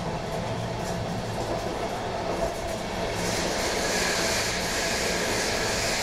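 Train running noise heard inside an Intercity coach hauled by a DB Class 101 electric locomotive: wheels rolling on the rails with a steady low hum. About three seconds in, a hiss joins.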